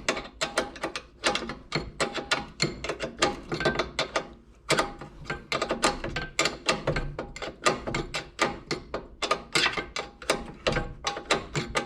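Hand ratchet wrench clicking rapidly in repeated strokes while turning a bolt on a rear brake caliper assembly, with a short pause about four and a half seconds in.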